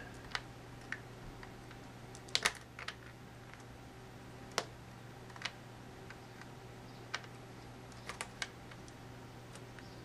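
Scattered light plastic clicks and taps from a Dell Inspiron 2650 laptop's keyboard and connector as fingers work to seat a plug back into its socket. The loudest pair comes about two and a half seconds in, and a quick cluster near the end.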